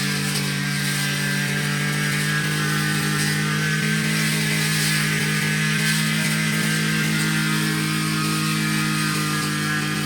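Small petrol grass-cutter engine running at a steady speed, with no change in pitch.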